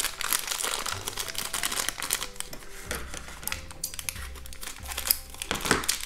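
Crinkling of a thin plastic blind bag as it is squeezed, cut open with scissors and pulled apart, a dense run of irregular crackles, with soft background music underneath.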